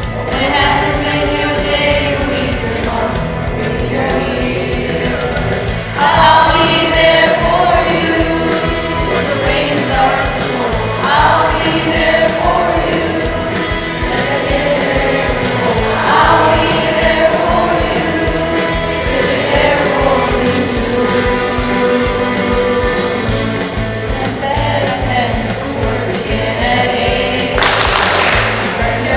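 Children's choir singing a song in unison over an instrumental accompaniment with a steady beat.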